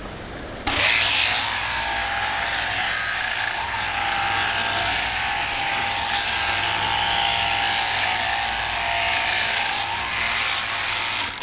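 Electric sheep-shearing handpiece on an overhead-drive shearing machine running and cutting through fleece: a steady, loud buzz with a low hum beneath it. It starts abruptly just under a second in and cuts off near the end.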